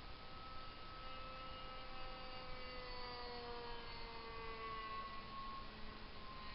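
Radio-controlled model airplane's motor and propeller whining as it flies past, the pitch sliding slowly down as it goes by, under a steady hiss of wind noise.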